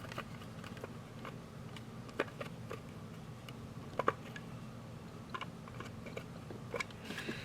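Faint, scattered clicks and ticks of a Phillips screwdriver working a blade screw tight on a soap shaver, the sharpest about two and four seconds in, over a steady low hum.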